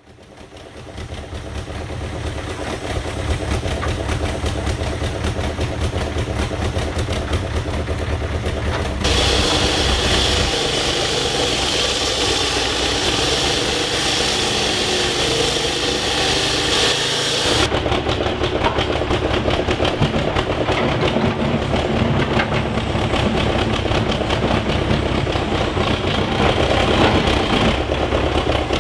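Diesel engine of a wheeled excavator running steadily, fading in at the start. From about a third of the way in until past the middle, a louder, brighter noise joins it, then the engine carries on alone.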